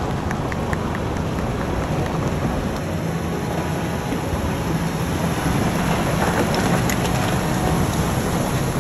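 Shallow river water rushing and splashing over rocks close to the microphone, a steady dense rush.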